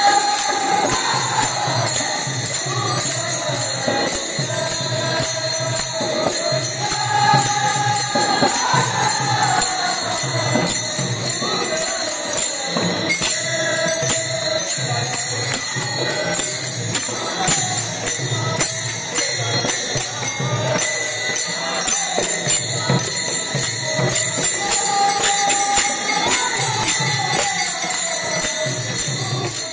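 Men singing a devotional Ganesh bhajan in phrases, accompanied by many pairs of small brass hand cymbals (taal) clashing in a steady rhythm and a barrel drum keeping the beat.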